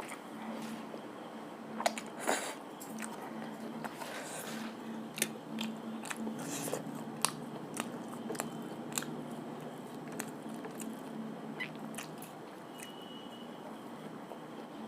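Close-up eating sounds: biting and chewing, with a string of short crunches and wet mouth clicks, the loudest about two seconds in, over a steady low hum.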